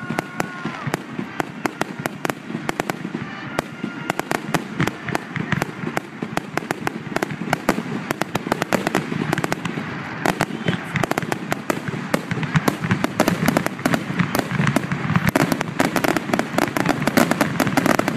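Fireworks finale: a rapid, continuous barrage of bangs and crackling bursts, growing denser and louder over the second half.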